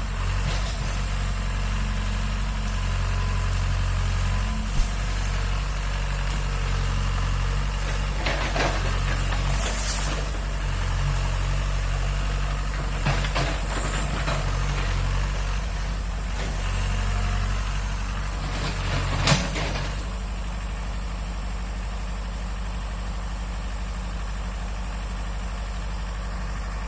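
Excavator's diesel engine running steadily at a low idle, with a few brief clanks and knocks from the machine, dropping slightly in level about two-thirds of the way in.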